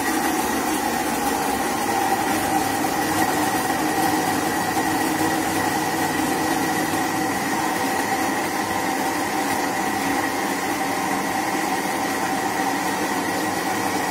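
Mallory countertop blender running at a steady speed, mixing a liquid corn cake batter: a loud, even motor whine with a steady tone over a rushing noise.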